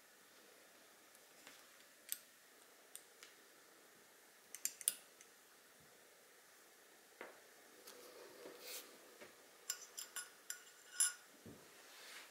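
Faint metal clicks and taps from a riflescope and its scope mount being handled and fitted by hand: a few scattered clicks, a short rustle, then a quick cluster of sharper clicks near the end.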